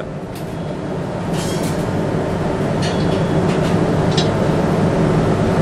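Steady loud roar of a commercial gas burner firing under a wok, growing a little louder over the first couple of seconds, with a few light metal clinks of utensils.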